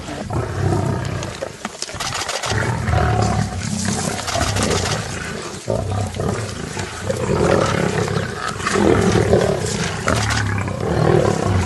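Lions growling over a zebra kill as they feed, a rough, low growl that swells and eases again and again.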